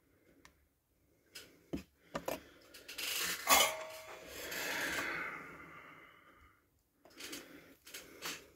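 Small hand tools being put down and picked up on a hardboard workbench: scattered clicks and knocks, a sharp metallic tap about three and a half seconds in, a rustling rub for a few seconds after it, then more clicks near the end as a soldering iron is taken up.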